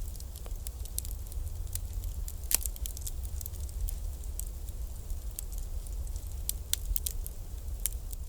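Wood bonfire crackling: irregular sharp pops and snaps over a steady low rumble, with one louder pop about two and a half seconds in.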